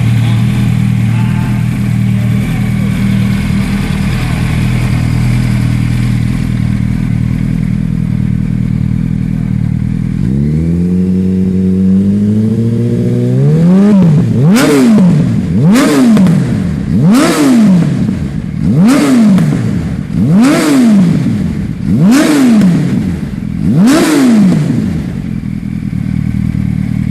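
Yamaha R1 inline-four sport bike idling through a Hurricane aftermarket exhaust tip, then revved up slowly and blipped seven times in quick succession, each rev rising and falling sharply, before settling back to idle.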